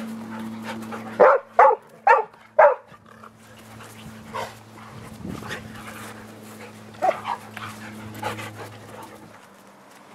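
Dogs barking during rough play: four loud barks in quick succession about a second in, then a few quieter barks.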